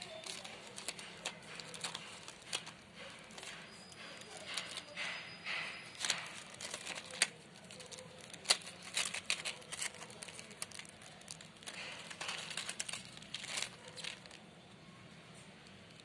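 Crinkly rustling and irregular clicks of hearing aid battery blister cards and their packaging being handled and shuffled in the hands. The rustling dies down near the end.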